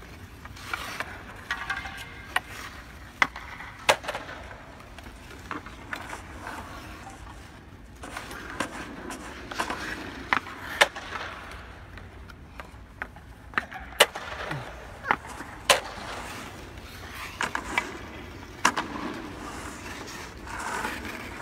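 Hockey sticks and puck clacking on rink ice in irregular sharp knocks, with skate blades scraping the ice between them.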